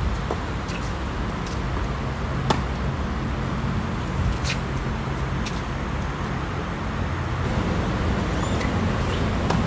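Tennis rally: the ball is struck back and forth with rackets, a series of sharp pops of ball on strings and bounces on the hard court, the loudest about two and a half seconds in. Underneath runs a steady low hum of road traffic.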